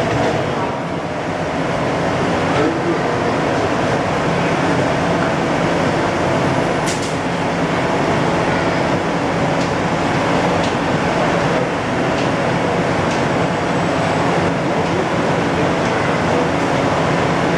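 Steady cabin noise inside an APM 100 rubber-tyred people-mover car: an even hum and rush, with a few faint steady tones.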